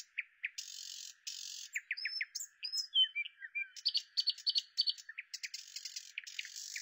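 Birds chirping and calling in woodland: many short, high notes and quick downward-sweeping whistles, with two brief buzzy notes about a second in.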